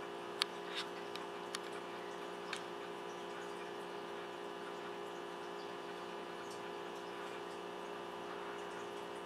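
An ice cube clicking sharply against a hard surface five times in the first three seconds as a cat bats it about, over a steady mechanical hum.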